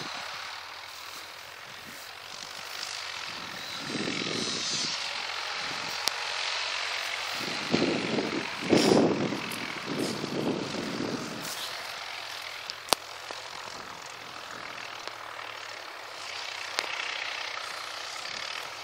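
Tractor engines running steadily at a distance as the paddy field is ploughed, with louder rushing surges about four seconds in and again around nine to eleven seconds in.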